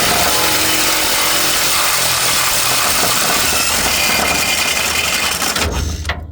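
Power drill running hard for about six seconds, spinning a socket on a rusted, seized nut and stopping near the end. The nut is heated enough by the effort to smoke.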